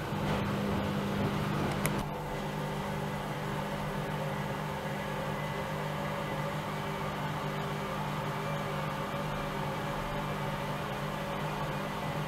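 Bauknecht WAE8575 front-loading washing machine running with a steady mechanical hum. A short click comes about two seconds in, after which the hum settles slightly quieter.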